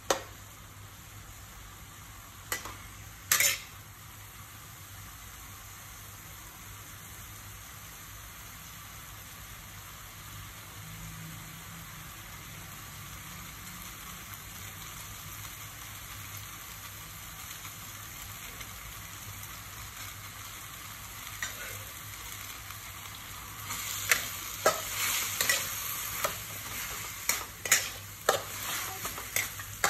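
Noodles, cabbage and greens sizzling in a metal wok. A metal spatula knocks against the pan twice a few seconds in, then scrapes and clacks repeatedly over the last several seconds as the food is tossed.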